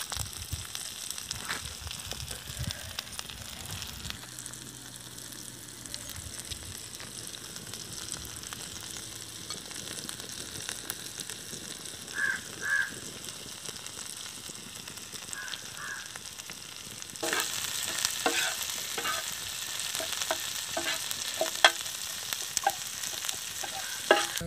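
Sliced shallots, garlic, green chillies and curry leaves sizzling as they fry in a black iron pan, stirred with a metal spatula that scrapes and clicks against the pan. The sizzling and stirring grow louder about two-thirds of the way through.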